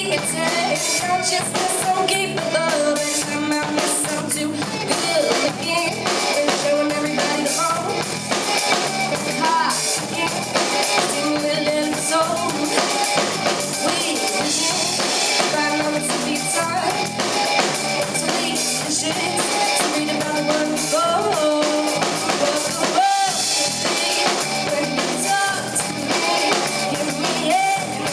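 Live amplified band performance: a female singer over electric guitar, bass guitar and a steady drum-kit beat.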